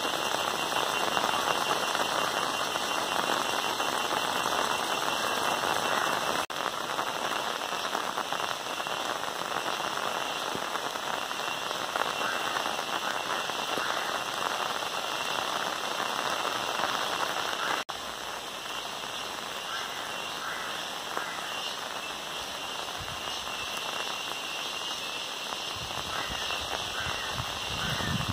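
Steady heavy monsoon rain falling, an even dense hiss. There are two brief dips in level, about a third and two-thirds of the way through, and the rain is slightly quieter after the second.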